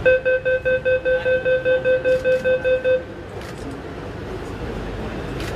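Delhi Metro train's door warning beeper: a rapid run of about fifteen high beeps, roughly five a second, lasting about three seconds. After it the carriage's steady background noise carries on.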